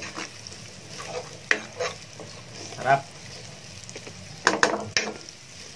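Chopped onion and garlic sizzling in hot oil in a nonstick frying pan, stirred with a metal utensil. A few sharp clicks of metal against the pan come about four and a half seconds in.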